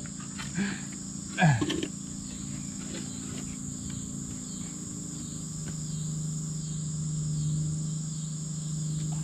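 Steady high-pitched insect chorus, one unbroken buzz, with a short low sound about a second and a half in and a low hum that grows louder through the second half.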